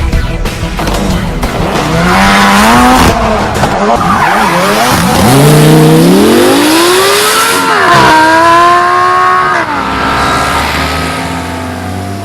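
Audi R8 engine breathing through an iPE (Innotech) valved sports exhaust, loud and revving: the pitch climbs about two seconds in, drops, climbs again in a longer sweep, holds and then falls away near the end.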